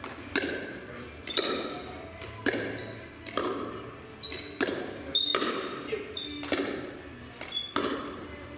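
Pickleball rally: paddles popping the hollow plastic ball, along with its bounces, about once a second or a little faster, with two hits in quick succession now and then. Each sharp pop echoes through a large gym hall.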